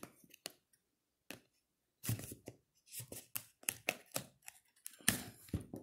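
Hands handling a sealed cardboard smartwatch box and working at its seal to open it: a few faint clicks, then from about two seconds in a run of short, irregular clicks and scratches of fingers and card.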